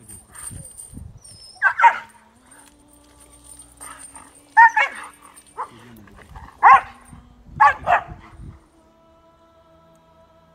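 A dog barking in short, loud bursts, about five times, some in quick pairs, as it snaps at a hand held to its mouth. It is a stressed, aggressive dog under an aggression test.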